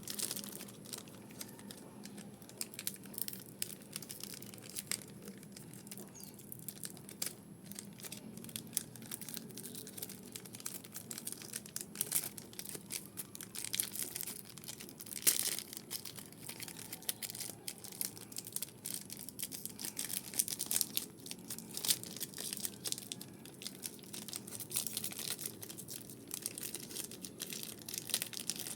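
Plastic wrappers of Pokémon trading card packs crinkling and tearing as they are handled and opened, with irregular crackles throughout.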